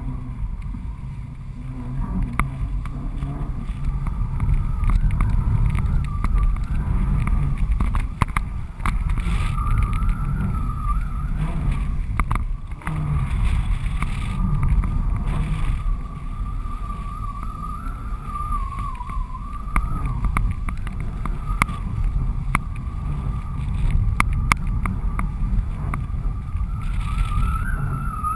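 Wind buffeting a GoPro HD camera in its housing, strapped to the strut of a flying 14 m Cabrinha Switchblade kite: a steady low rumble with scattered clicks and a thin, wavering whistle.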